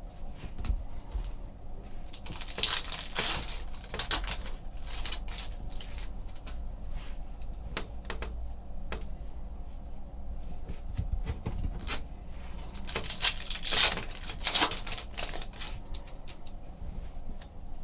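Trading cards being flipped through and handled: scattered small taps, flicks and rustles of card stock, with a few louder rustles about three seconds in and again near fourteen seconds.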